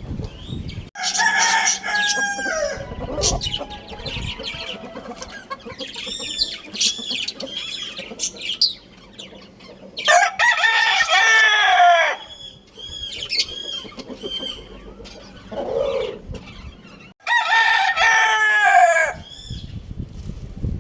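Rooster crowing three times, each crow a long call that slides down in pitch at the end, with shorter clucking and chirping calls from fowl between the crows.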